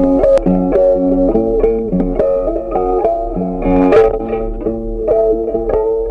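Background music: a plucked guitar playing a melody.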